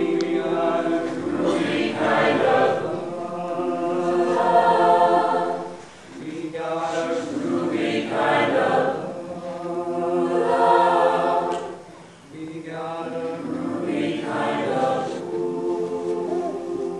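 Mixed-voice choir singing in harmony, holding long sustained phrases with two short breaks between them, about six and twelve seconds in.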